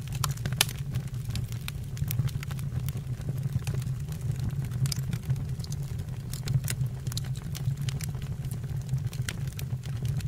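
Wood fire burning in a fireplace or stove: irregular sharp crackles and pops over a steady low rumble.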